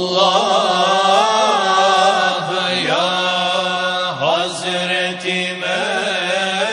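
A group of men singing an Islamic devotional hymn. The voices hold long, ornamented notes that glide between pitches over a steady low held note.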